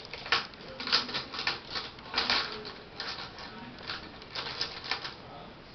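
Makeup brushes being handled at a bathroom sink: a run of irregular small clicks and crinkles, some louder than others.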